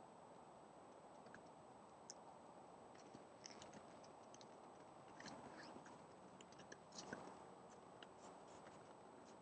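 Faint, scattered crunches and clicks from a moose moving and feeding in the snow, over the trail camera's steady hiss and a thin high whine.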